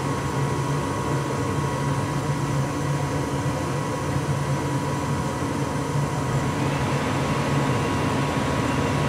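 A lit furnace running steadily: a low hum under a constant rush of burner and air noise, with a faint steady whine. The hiss grows slightly brighter about two-thirds of the way through.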